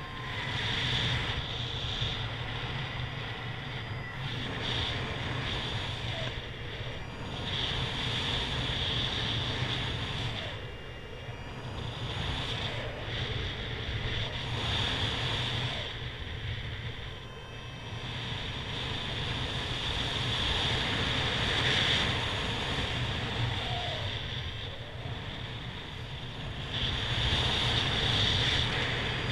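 Airflow buffeting the camera microphone of a paraglider in flight: a steady rush of wind noise with a deep rumble, swelling and easing every few seconds.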